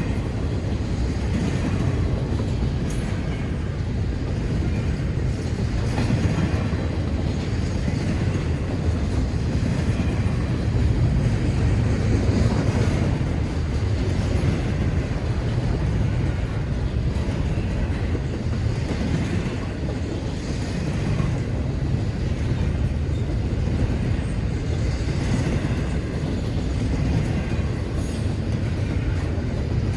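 Freight train's cars, a mix of autoracks and intermodal cars, rolling steadily past: a continuous heavy rumble of wheels on rail with faint repeated clicking.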